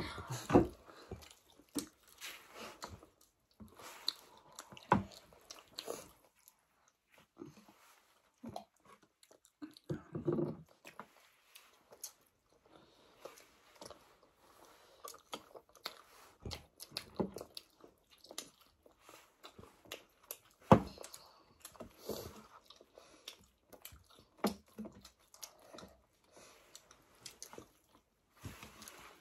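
Several people chewing and biting into chapati and buffalo-meat curry close to the microphone, with scattered wet mouth and chewing sounds. A few sharp knocks stand out, the loudest about 21 seconds in.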